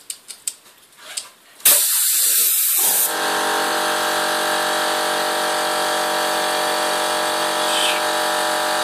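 A few light clicks, then a loud rush of air about two seconds in that lasts over a second and gives way to a small electric motor running with a steady hum.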